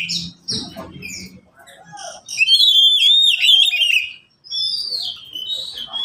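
Oriental magpie-robins singing: fast, varied whistled phrases and slurred notes, the loudest a quick run of repeated downslurred notes mid-way, with more separate whistles after it.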